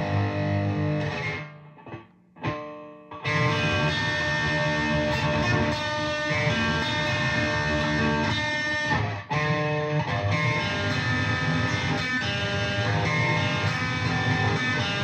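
Electric guitar with fuzz distortion playing an instrumental passage, chords ringing on. It cuts out almost completely for about a second and a half near the start, then comes back in full, with another brief break later.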